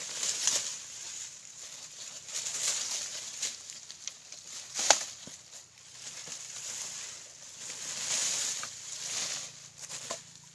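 Leafy plants and dry stalks rustling and crackling as they are pulled up and dragged through the foliage. A sharp crack about halfway through is the loudest sound.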